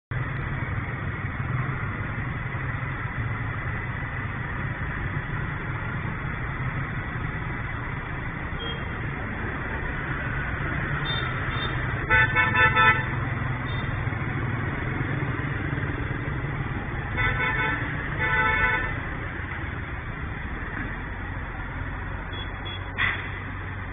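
Steady street traffic from passing motorbikes and cars, with a vehicle horn sounding a quick run of short toots about halfway through and two more toots a few seconds later.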